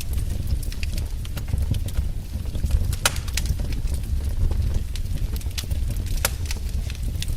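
Wood fire crackling in a fireplace: irregular sharp pops and snaps over a steady low rumble of the flames, with two louder pops about three and six seconds in.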